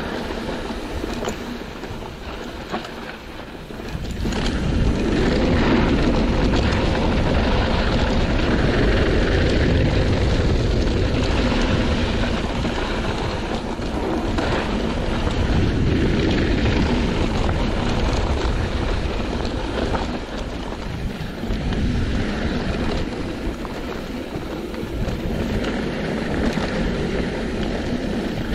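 Rushing wind buffeting the microphone of a mountain bike rider's camera, mixed with the rumble and rattle of the bike rolling down a dirt trail. The noise gets louder about four seconds in as speed picks up.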